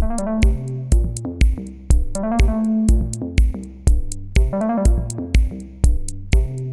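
Electronic background music with a steady beat, a low kick about twice a second with sharp ticks between, under a melody of synth-like notes.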